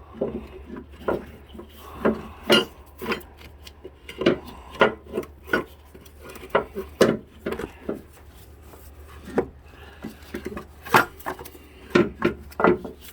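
Irregular clinks and knocks of hand tools and metal engine parts being handled while an engine-mount bracket is worked loose, with short scraping rubs between them.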